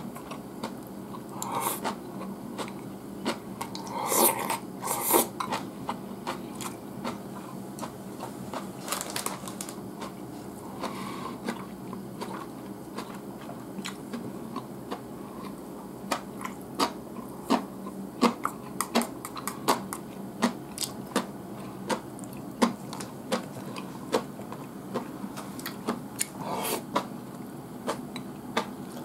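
Close-up eating sounds: chewing, with many light, sharp clicks of chopsticks against a bowl throughout and a few louder bursts.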